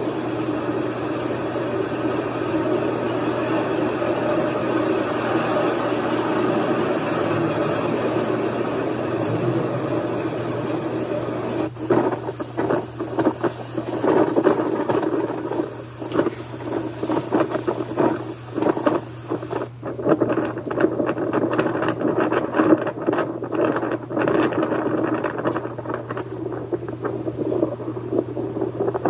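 Hurricane wind blowing hard, heard as a loud rushing noise over a low steady hum. It is even at first, then turns gusty and surging about twelve seconds in.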